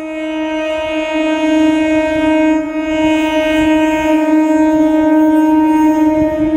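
Electric multiple unit (EMU) local train's horn held in one long, steady blast over the low rumble of the running train.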